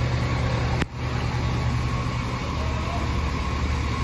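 A large engine running steadily and low-pitched, over the hiss of heavy rain.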